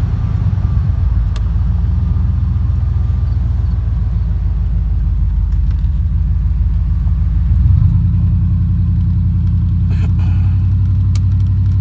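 Motor vehicle engine running steadily with a low rumble while driving; the engine note steps up in pitch about eight seconds in.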